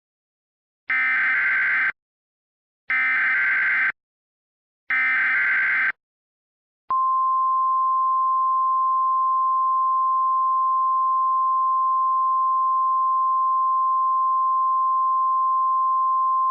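Emergency Alert System SAME header: three bursts of warbling digital data tones, each about a second long and two seconds apart. These are followed by a single steady alert tone near 1 kHz held for about ten seconds, the attention signal that precedes the spoken alert.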